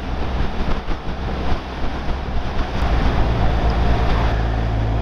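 BMW R1200R boxer-twin motorcycle riding along at road speed: steady engine drone mixed with wind rush and tyre hiss on a damp road. The low engine note grows stronger about three seconds in.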